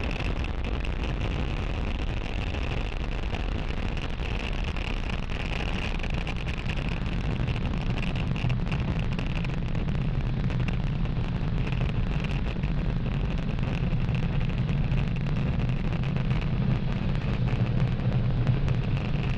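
Falcon 9 first-stage rocket engines during ascent: a steady rumble with a hiss, the low rumble growing stronger in the second half.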